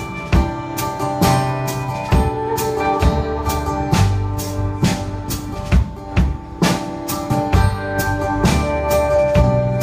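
Live band playing an instrumental break: a drum kit keeping a steady beat under a strummed acoustic guitar and an electric guitar.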